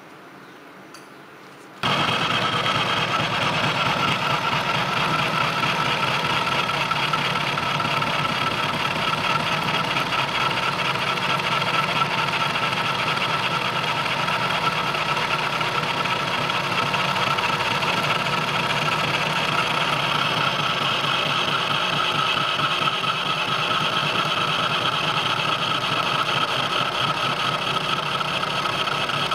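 A machine motor starts suddenly about two seconds in and runs steadily and loudly.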